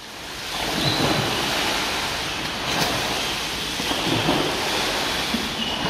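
Steady rushing and splashing of pool water churned by leaping bottlenose-type dolphins, with wind noise on the microphone.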